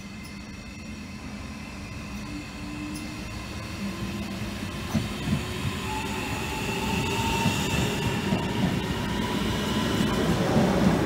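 A Trenitalia Rock double-deck electric multiple unit approaches and runs past along the platform, growing steadily louder, with a whining tone over the rumble of the wheels on the rails.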